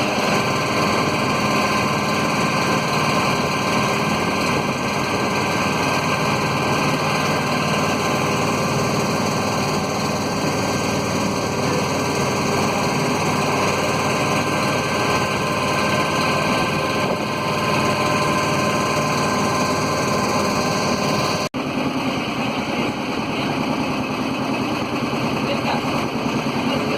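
Small motorboat engine running steadily at an even pitch, with a thin high whine over it. The sound breaks off for an instant about three-quarters of the way through, then carries on with a slightly changed tone.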